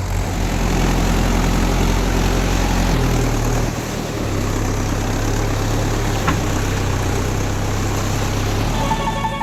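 Heavy farm-vehicle engine running steadily, its pitch shifting down a little about three to four seconds in, with a single sharp click about six seconds in.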